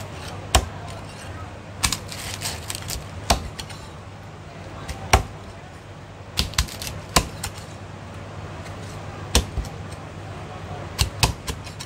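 Chinese cleaver chopping through crispy-skinned roast pork belly onto a thick wooden chopping block: about ten sharp, irregularly spaced chops, some in quick pairs.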